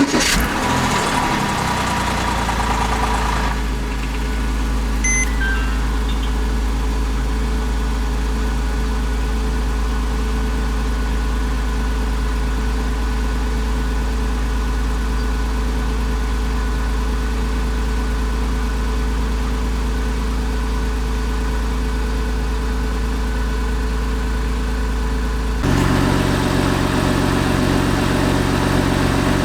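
Porsche Boxster 987's 2.7 flat-six engine starting up, running a little faster for the first few seconds, then settling to a steady idle. About 26 seconds in, the sound turns slightly louder and rougher.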